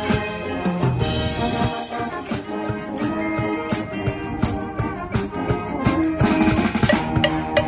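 Brass band playing a tune, with sousaphones, trombones and trumpets holding notes over drums and cymbals. The drum strikes come thicker near the end.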